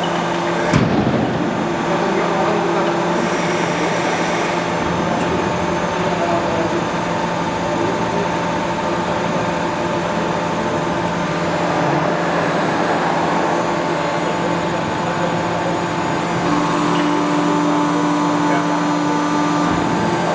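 ERMAK hydraulic press brake running, a steady machine hum with several constant tones from its hydraulic pump drive. A single knock comes about a second in, and an extra steady tone joins from about 16 to 20 seconds.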